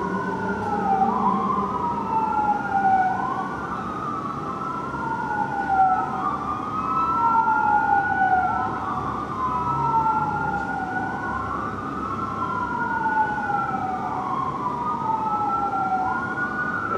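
Fire engine's Whelen electronic siren on wail, each cycle rising quickly and falling slowly, about every two seconds.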